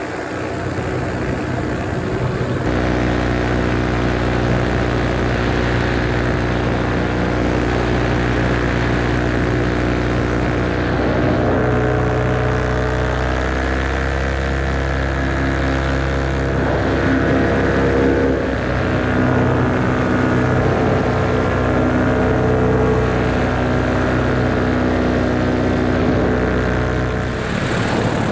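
Moster 185 paramotor's single-cylinder two-stroke engine and propeller running under power. The engine picks up a few seconds in, its pitch shifts up and down with the throttle through the middle, and it eases back near the end.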